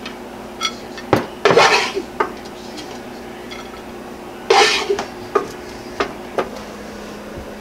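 Wooden spoon scooping food from a pot onto a plate: two short scrapes, about a second and a half in and again about four and a half seconds in, with a few light knocks and clinks between.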